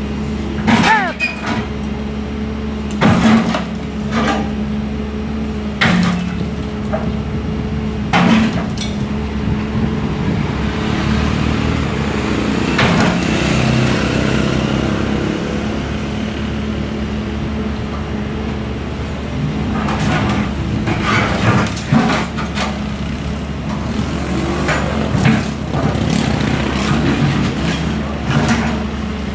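Heavy demolition machinery's engine running steadily, with repeated sharp cracks and crashes of the building being broken apart: a cluster in the first few seconds, a quieter stretch in the middle, then more impacts near the end.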